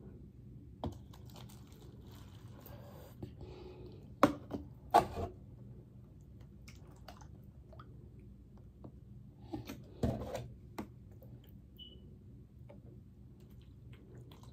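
A few sharp knocks and clicks from a plastic milk jug and a plastic measuring cup being handled on a tray while milk is poured, the loudest two about four and five seconds in and another about ten seconds in.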